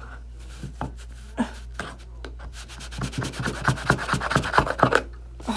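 A flat Cricut tool scraping stuck transfer tape off a strong-grip cutting mat: a few separate scrapes, then about three seconds in a quick run of short back-and-forth strokes for about two seconds. The strong transfer tape has bonded to the strong-grip mat's adhesive.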